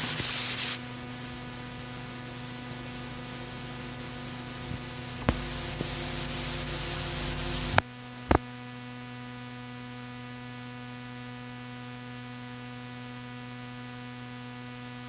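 Steady hiss and mains hum of an old speech recording running on after the voice has stopped. There are a few sharp clicks about five and eight seconds in, and after the click near eight seconds the noise drops to a lower, steadier hum.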